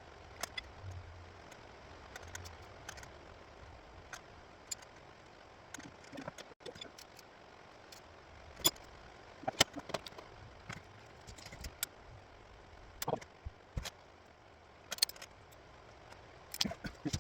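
Hand tools and metal parts clinking and tapping on a Honda K24A engine during timing chain work. The sharp clicks are scattered and irregular, and come more often in the second half.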